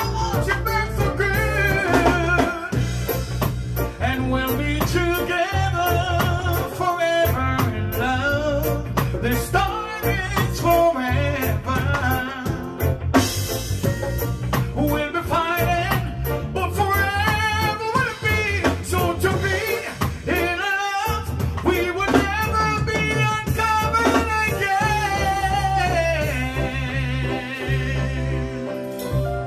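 A male singer sings a reggae song live into a microphone, backed by electric bass guitar and drums.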